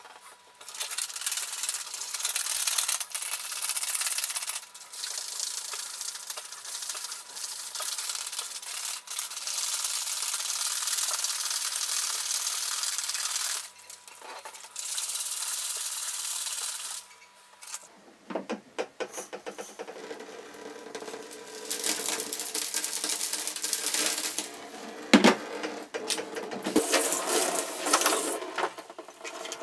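Rice grains and soapy water being shaken hard inside a plastic coolant expansion tank, a continuous gritty rattling swish that stops briefly now and then: the rice scouring grime off the tank's inner walls. From about 18 s in the sound turns choppier, with clicks and one sharp knock about 25 s in.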